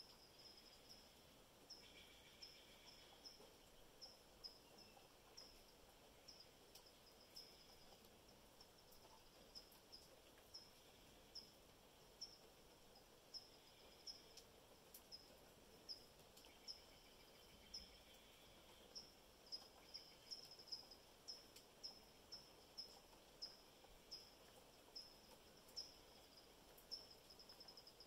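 A faint, high-pitched chirp from a small animal, repeated about once or twice a second and coming faster in the second half, over a quiet background hiss.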